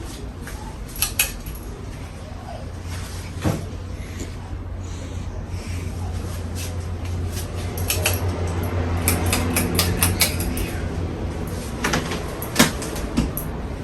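Harbor Breeze Edenton ceiling fan running with a steady low motor hum that grows louder through the middle and eases near the end, with several sharp clicks and knocks, the loudest near the end.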